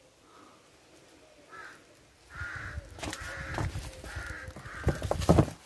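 Harsh bird calls, about five short calls in a row of roughly half a second each, over a low rumble, with a couple of sharp knocks near the end.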